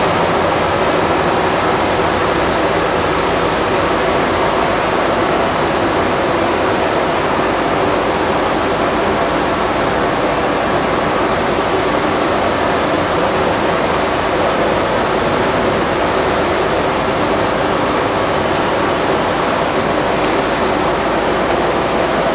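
Factory machinery running: a steady, even rushing noise with a faint hum underneath.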